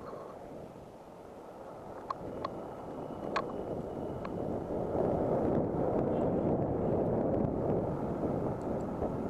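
Wind rushing over the action-camera microphone of a moving electric scooter, growing louder as the scooter picks up speed and then holding steady. A few sharp ticks sound in the first half.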